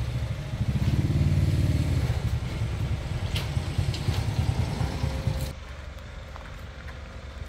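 Rice combine harvester's engine running steadily, a low rumble with a few faint clicks. It drops noticeably quieter about five and a half seconds in.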